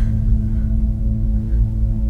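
Dark ambient film score: a low, sustained droning chord held steady, with a deep rumble underneath.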